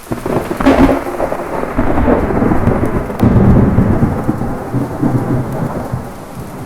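A thunderclap cracks just under a second in and rolls into a long low rumble that swells again partway through and eases off near the end, over steady heavy rain.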